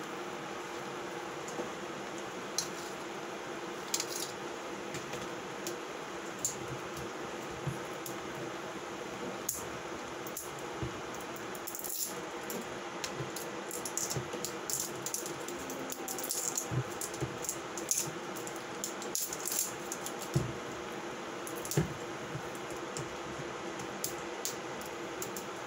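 Scattered light clinks and taps of kitchen utensils and dishes over a steady background hum. The clinks come more often in the second half.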